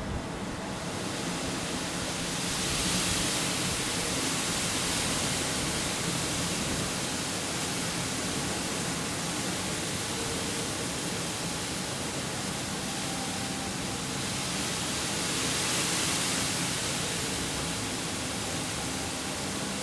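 Wind blowing across open ground: a steady, even hiss that swells about three seconds in and again later on.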